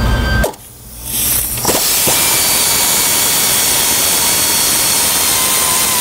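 Pneumatic air ratchet spinning steadily, with a hiss of air and a thin whine, as it runs out a bolt holding the accessory bracket to the LS3 engine. It starts a little under two seconds in, after a short lull.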